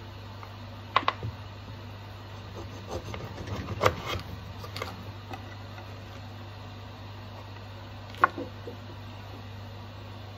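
Scattered sharp clicks and knocks of a knife cutting a lemon in half: a double click about a second in, a cluster around four seconds, and a single sharp knock near eight seconds, over a steady low hum.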